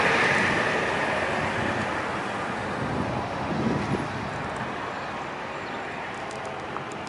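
A passing road vehicle: tyre and engine noise, loudest at the start and fading steadily as it moves away.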